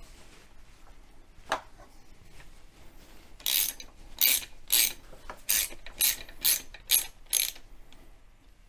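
Hand socket ratchet clicking in about eight short bursts, roughly two a second, as its handle is swung back and forth to back out a bolt; a single faint click comes before them.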